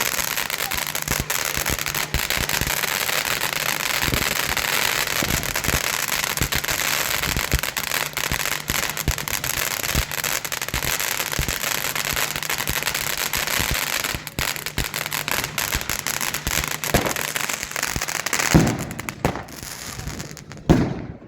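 Firework fountain burning with a steady loud hiss and dense crackle, then thinning out as a couple of sharp salute bangs go off near the end.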